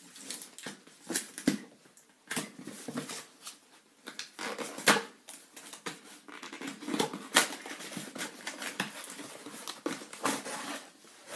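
Cardboard delivery box and its paper contents being handled: irregular rustling, crinkling and tapping of cardboard and paper, with a few sharper knocks.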